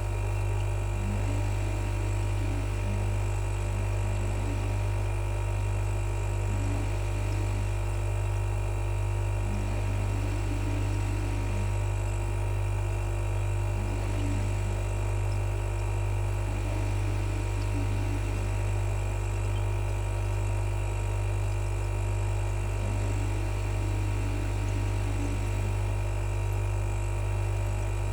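Refrigerator compressor buzzing: a steady low hum with faint higher whine tones, unchanging throughout.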